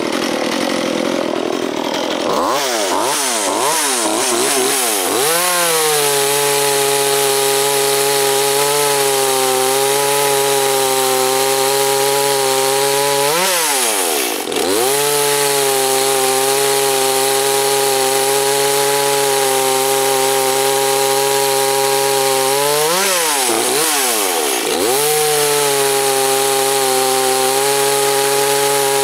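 Dolmar PS-32 two-stroke chainsaw with a 16-inch bar and chain, cutting into a log. After a few quick throttle blips it settles to a steady, loaded engine note in the wood. The pitch swings up and down briefly about halfway through and again a few seconds before the end.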